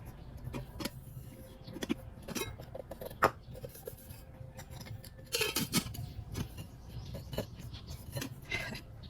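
Small metal camping kettle being handled: scattered light clinks and taps, with a sharper click about three seconds in and a busier stretch of handling around five to six seconds in.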